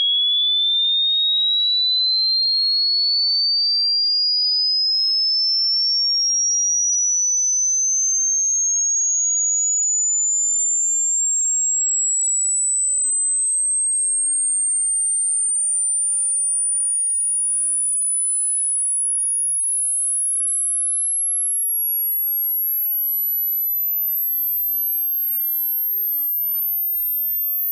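A single pure sine-wave test tone sweeps slowly and steadily upward in pitch, from a high whistle to a very high, thin tone near the top of human hearing. It is a frequency-sweep hearing test, and it ends in the range that older ears stop hearing.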